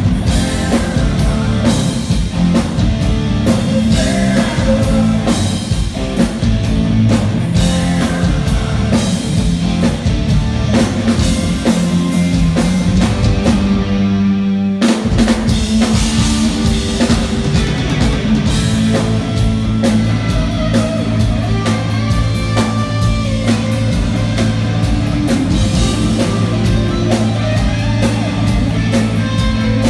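Rock band playing live, instrumental, with drum kit, electric guitar and bass. About halfway through the band breaks off briefly, leaving a low held note, then comes back in full.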